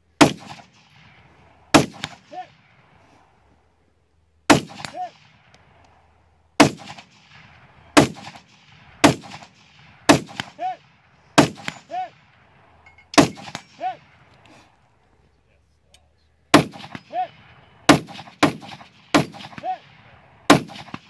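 AR-15 rifle firing about fifteen shots in uneven strings with short pauses. Several shots are followed about half a second later by the thin ring of a distant steel target being hit.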